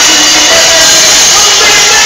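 Live rock band playing loud and continuously, with electric guitar and drum kit, heard from the audience.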